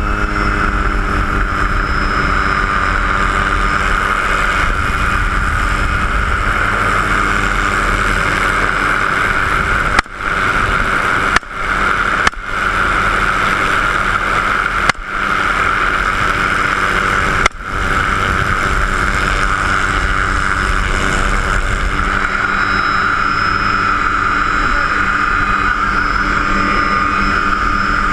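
Helicopter engine and rotor running steadily, heard from inside the open-door cabin, with a loud whine over the drone. Five sharp bangs cut in between about ten and eighteen seconds in, each briefly knocking the level down.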